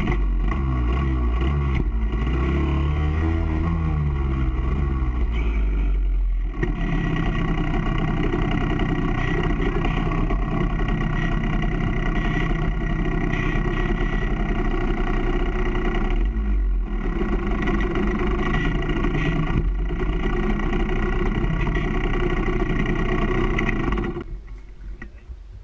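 Off-road vehicle engine running under load, revving up and down for the first few seconds, then held fairly steady with a few brief drops in throttle, and fading away near the end.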